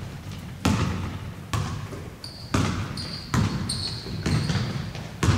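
Repeated dull thuds about once a second, with short high squeaks among them from about two seconds in.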